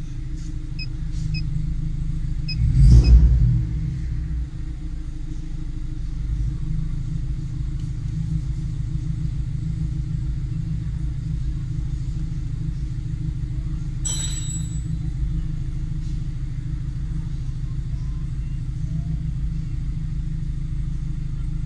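Mazda MX-5 ND's 2.0 Skyactiv-G four-cylinder, fitted with sharper camshafts and a straight-through exhaust, on a cold-start fast idle, heard from inside the cabin. A steady low drone, with a brief louder burst about three seconds in.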